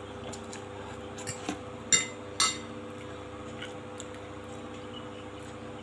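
Metal fork and spoon clinking against a glass plate: a couple of light taps, then two sharp ringing clinks about half a second apart, around two seconds in.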